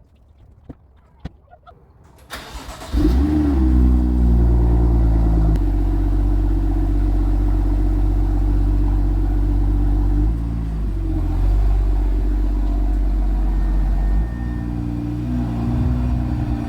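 A few faint clicks, then the BMW M2's straight-six engine is started about three seconds in, flaring as it catches and then idling. The car is starting after sitting for close to a year. The note dips briefly around ten seconds in and shifts again near the end.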